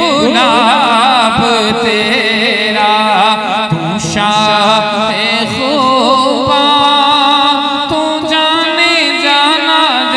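A man singing a naat, an Urdu-language devotional poem in praise of the Prophet, in long drawn-out melismatic phrases with a strong wavering vibrato. A steady low tone runs beneath the voice.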